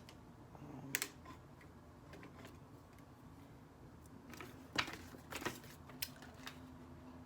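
Scattered sharp clicks and taps of plastic parts being handled on a phone tripod stand, the loudest a little under five seconds in.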